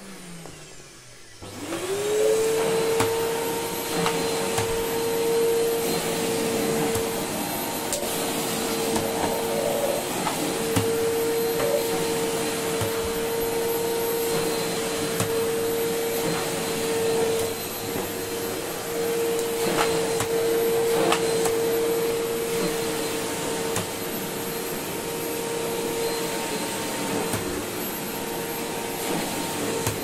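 Samsung Easy 1600 W canister vacuum cleaner switched on, its motor spinning up over the first couple of seconds to a steady high whine. It then runs at full suction while the floor brush is worked over carpet.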